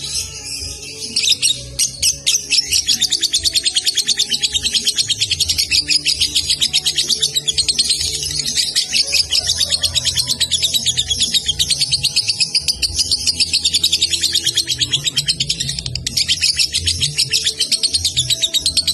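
Young lovebird singing a long, unbroken run of rapid high chattering (the ngekek style), with only brief breaks about a second in and again near the end.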